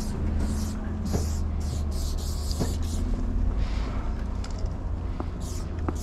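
Aerosol spray paint can hissing in several short bursts as paint is sprayed onto the metal side of a train car, over a steady low rumble.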